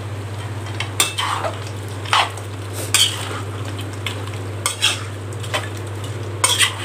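Slotted steel spatula scraping and knocking against a metal kadai as chunks of mutton are stirred and sautéed dry over full flame, with a steady sizzle. About six scrapes come at uneven intervals over a steady low hum.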